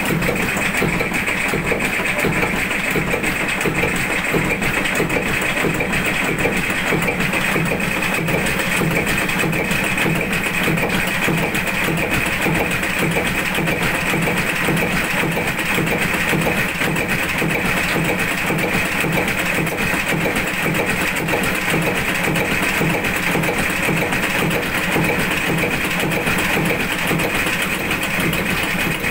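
Old slow-running tugboat diesel engine, rated at 60 horsepower at 250 turns per minute, running steadily at an even rhythmic beat.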